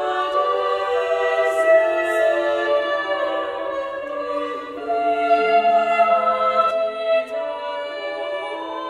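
Choir recorded in a church, singing sustained chords that shift every second or so. It is played back as a two-channel downmix of a multichannel 3D microphone-array recording.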